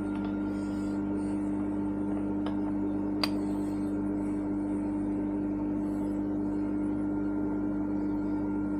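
Steady electric motor hum of a milling machine, with a few light metal clicks as a steel 1-2-3 block is set against the work in the vise.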